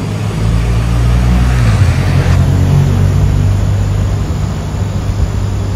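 A road vehicle's engine running close by, a low hum that drops a little in pitch about two seconds in, with a rushing hiss that stops soon after.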